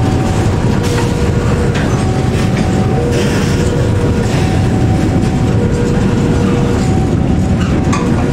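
Container flat wagons of a freight train rolling past during shunting: a steady low rumble with occasional wheel clanks. Over it a two-note warning tone alternates low and high, each note about a second long.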